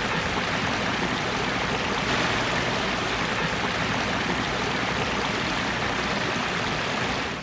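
A pondless waterfall running steadily after its clean-out, water splashing down its rock stream.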